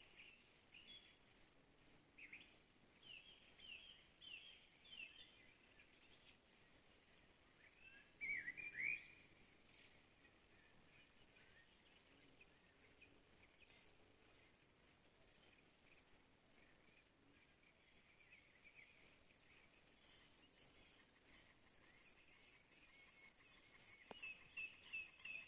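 Faint insect chorus, crickets trilling steadily at a high pitch. Scattered short chirps are heard over it, with one louder chirping call about eight seconds in, and a fast, very high ticking joins about two thirds of the way through.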